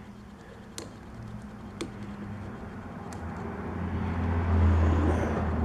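A few light clicks and taps of hands working at a riding mower's fuel filter and line clips, with a low rumble swelling up in the second half.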